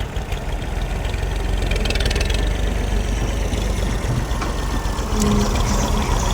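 Heavy diesel engine running close by, with a steady knocking rhythm, a little louder from about five seconds in.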